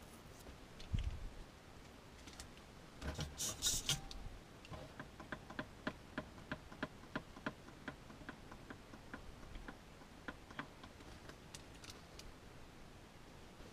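Light, evenly spaced clicks, about three or four a second, after a brief rustle about three seconds in.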